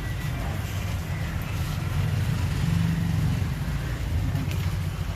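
Road traffic passing: a steady low engine rumble that swells a little in the middle.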